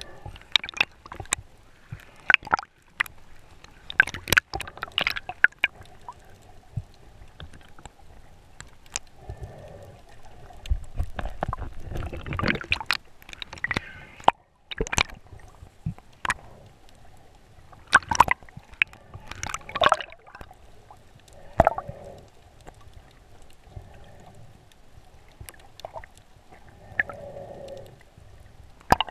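Underwater sound through a GoPro housing: muffled water sloshing and gurgling around the camera, with scattered sharp clicks and knocks.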